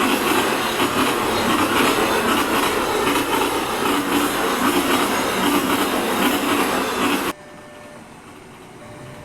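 A train passing close by: the loud, steady rush and rumble of its wheels on the rails. It cuts off abruptly about seven seconds in, leaving a much quieter background with a faint steady hum.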